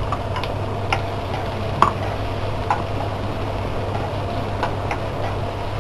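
A spatula clicking and knocking against a non-stick frying pan as chopped onions are stirred in oil: irregular sharp ticks, the loudest about two seconds in, over a steady low hum.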